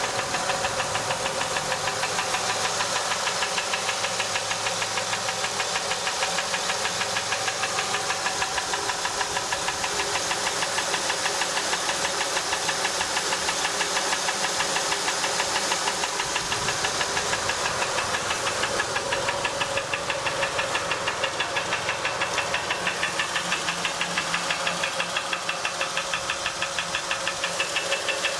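2007 Honda Ridgeline's 3.5-litre V6 engine running with a steady, rapid, even ticking knock. The owner suspects a fault; the dealer says it is nothing but standard operating noise.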